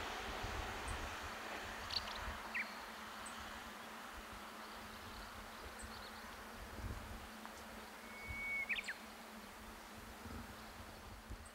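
A 381-series electric train's running noise fading away as it recedes, under a low gusty rumble of wind on the microphone. A few short high chirps come around two seconds in and again near eight seconds.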